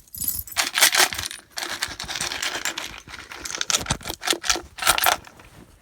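Small hard treasure items being rummaged and pulled out of a container: irregular clicks, clinks and rustling.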